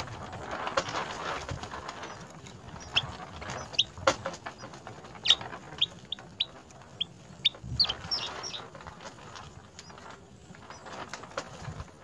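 Eurasian tree sparrows at a nest: a fluttering rustle in the first couple of seconds, then a string of short, high chirps through the middle.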